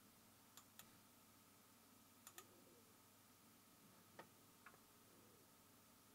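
Near silence with a few faint computer mouse clicks, mostly in pairs: two about half a second in, two a little after two seconds, and two around four seconds in.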